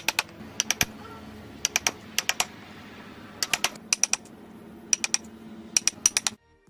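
A hand chisel cutting into wood: crisp ticks in quick clusters of two to four, about one cluster a second. The ticks stop shortly before the end.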